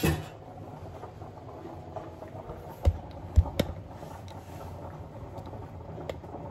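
Cookware being handled at the stove: a few sharp knocks close together about three seconds in and a lighter one near the end, over a steady low kitchen hum.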